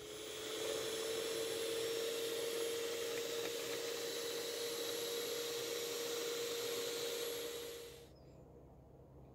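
Electric hand mixer running at one steady speed, its beaters whisking thin cake batter in a stainless steel bowl. The motor's whine rises slightly as it comes up to speed in the first second, then holds steady and stops about eight seconds in.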